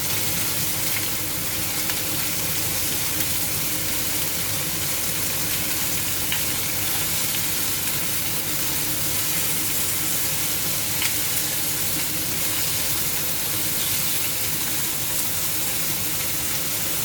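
Chicken pieces frying in hot oil in a pan: a steady sizzle with a few small pops.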